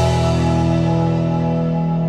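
Background music: a sustained guitar chord ringing out and slowly fading.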